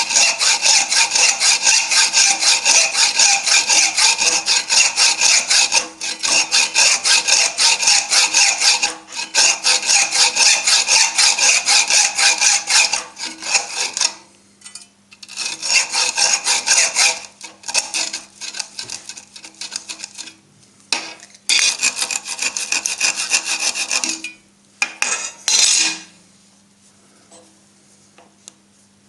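A saw cutting through a thick welding earth cable in quick rasping strokes, taking off the burnt end of the overheated lead. It runs steadily, pauses for about a second, then goes on in shorter bursts before stopping a few seconds before the end.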